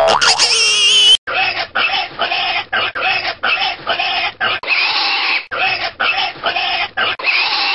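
Pig grunts and oinks cut into a run of short clips that start and stop abruptly. The run opens with a high, wavering, sliding squeal about a second long.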